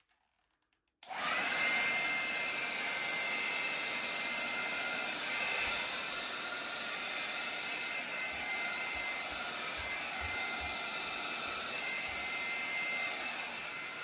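Hand-held hair dryer running on its high setting, a steady rush of air with a faint high whine, cutting in suddenly about a second in.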